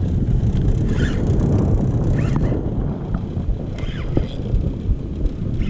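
Steady low rumble of a small open fishing boat under way, with wind buffeting the microphone, and a few short faint squeaks.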